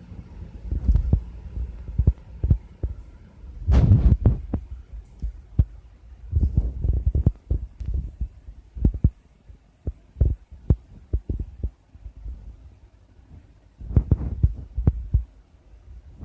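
Irregular low thuds and knocks, coming in clusters, with a few sharper clicks among them; the loudest group is about four seconds in.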